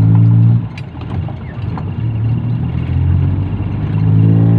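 Six-wheel dump truck's diesel engine heard from inside the cab while driving: the engine note eases off about a second in, then builds back and rises in pitch near the end as the truck accelerates.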